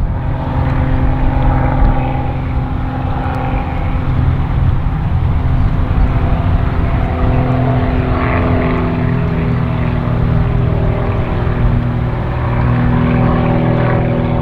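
Outboard boat motors running, a steady engine drone with its pitch wavering slightly.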